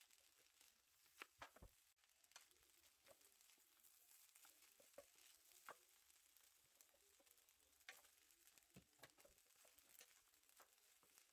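Faint crackling of fried rice sizzling in a pan, with scattered sharp ticks and pops.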